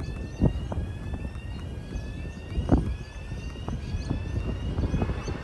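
Electric suburban train approaching: a faint whine that rises slowly in pitch again and again, with scattered knocks, growing louder near the end.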